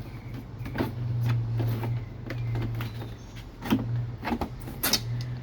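Old motorcycle windshield being pulled free of a Harley-Davidson Street Glide fairing after its screws are out: a series of sharp clicks and knocks of plastic and hardware, over a steady low hum.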